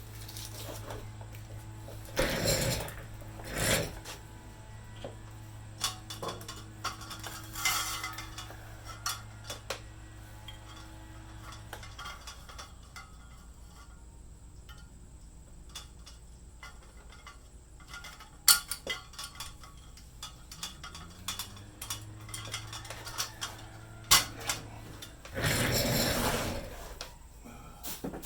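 Metal parts and hardware being handled, clinking and clattering with scattered sharp clicks and a few louder rustling scrapes. A steady low hum runs for the first dozen seconds, stops, and comes back for a few seconds later on.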